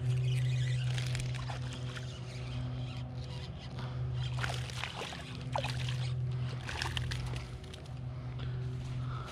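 Small largemouth bass splashing at the surface of the water's edge while being reeled in on an ultralight rod, with a few sharp splashes about four to seven seconds in. A steady low hum runs underneath and is the loudest sound.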